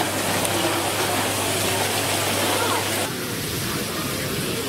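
Beef burger patties sizzling on a hot flat-top griddle, a steady hiss, with crowd chatter behind it. A low hum drops out about three seconds in.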